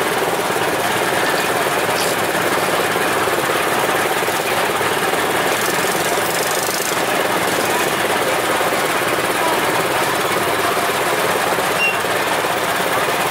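A small motor running steadily with a fast, even rattle.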